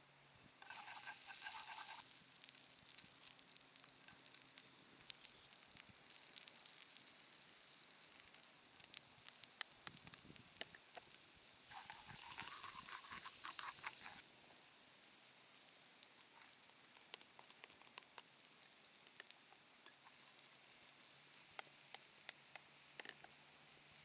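Food frying in a pan. It sizzles loudly twice, briefly about a second in and again for about two seconds near the middle, as food is added or stirred. Between the loud spells it sizzles quietly with small crackles and pops.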